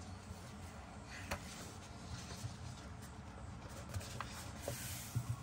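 Faint handling of a paper book: pages of a colouring book being turned and smoothed, soft rustles with a few light clicks and taps.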